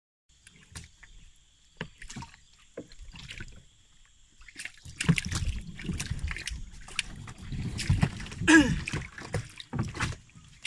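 Water sloshing and splashing with scattered knocks, louder and busier from about five seconds in. A faint steady high whine runs underneath, and a short falling squeak comes about eight and a half seconds in.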